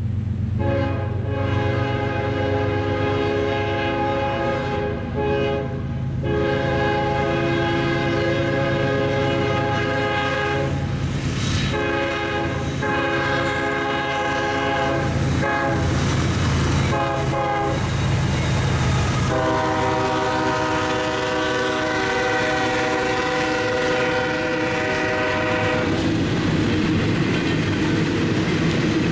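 A CSX GE ES44 diesel locomotive sounding its air horn, a chord of several tones, in a series of blasts as it approaches, ending with a long blast of about seven seconds. Under it the diesel engines run steadily, and near the end the intermodal train's cars roll past with wheels clicking over the rail joints.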